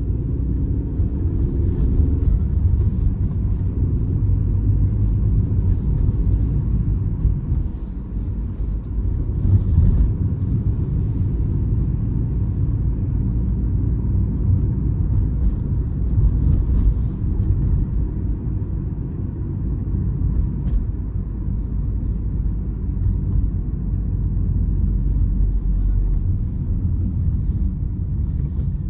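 Opel Astra H being driven: a steady low rumble of engine and road noise, rising and falling slightly.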